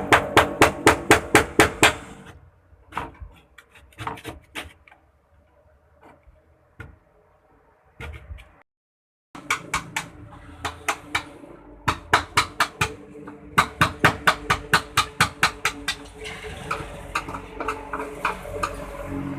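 Hammer blows on sheet metal, fast and regular at about five strikes a second. They pause for several seconds, with only a few scattered knocks, then resume and keep going.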